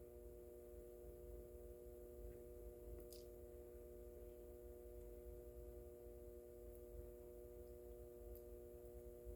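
Near silence with a faint, steady electric hum made of several held tones.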